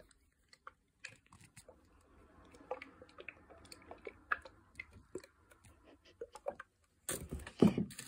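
Faint, irregular crackling and tiny clicks of a sensory fidget toy held close to the microphone, with a louder handling noise near the end.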